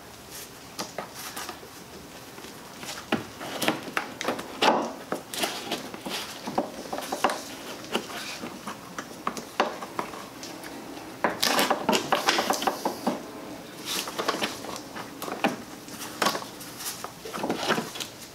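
Gloved hands handling and routing a rubber fuel hose and its plastic fittings in a car's engine bay: irregular clicks, taps and rustles, busiest a little past the middle.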